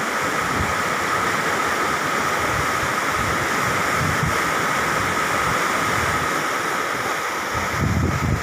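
Fast floodwater of the swollen Yamuna rushing and churning past a bridge pier: a steady, even rushing noise.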